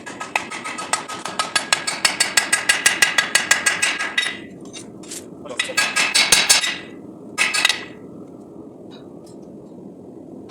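A hammer striking hot 5160 steel on an anvil in a fast, even run of ringing blows, about six a second, while the blade is hand forged. It breaks off about four seconds in, then comes back in two short quick flurries and stops about eight seconds in. A steady low rushing noise runs underneath.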